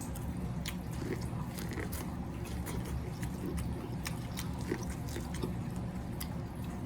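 Close-up mouth sounds of someone eating seafood: chewing and biting, with irregular small clicks and wet smacks, over a steady low hum.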